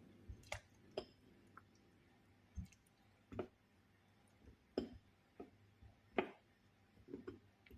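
Faint kitchen handling sounds, as sliced lemon and utensils are moved: about a dozen short clicks and soft knocks, irregularly spaced.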